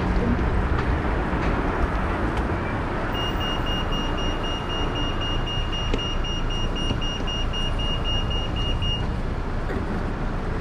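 Road traffic and wind rushing past a bicycle-mounted camera, with an electronic beeper sounding about three seconds in. It gives a quick series of short, high-pitched beeps, about four a second, for about six seconds.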